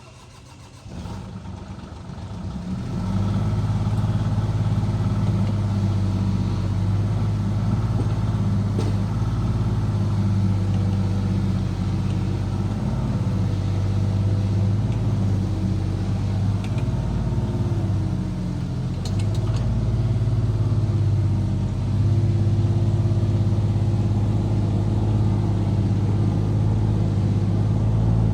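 Small diesel engine starting about a second in and coming up to a steady run within a couple of seconds. After that it runs steadily, with small shifts in speed partway through.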